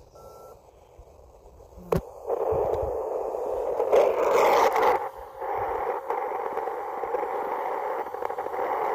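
A (tr)uSDX QRP transceiver's speaker giving a short beep, then a click about two seconds in, after which 40-meter band static hisses steadily with a faint steady carrier tone under it. A brief louder rustle comes about four seconds in.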